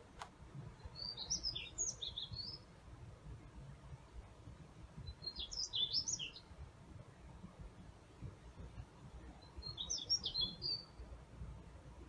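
A songbird singing the same short, high, twittering phrase three times, about four seconds apart.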